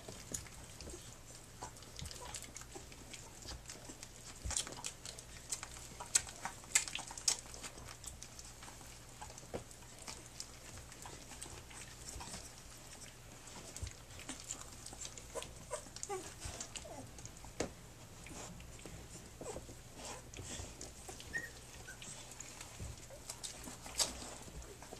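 Three-week-old Standard Schnauzer puppies nursing: wet sucking and smacking clicks scattered irregularly throughout, with a few brief squeaky sounds.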